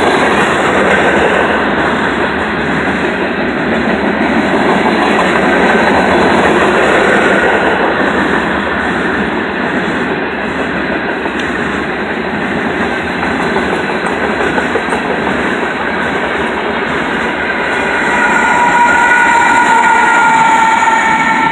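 Loaded grain hopper cars of a freight train rolling past close by, a steady loud rumble and clatter of steel wheels on rail. Near the end, a few steady high-pitched tones come in as a locomotive draws alongside.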